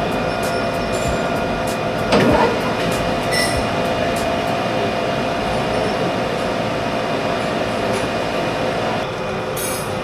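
Metalworking machine tool running with a steady whine while cutting metal off the face of a workpiece. A brief, louder scrape comes about two seconds in, and part of the whine drops out near the end.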